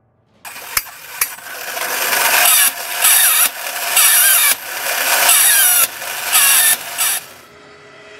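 A cymbal-clapping chimp toy going off: two sharp clicks, then a run of loud bursts about a second apart. Each burst has the clash of its small brass cymbals and a wavering squeal, and it stops suddenly near the end.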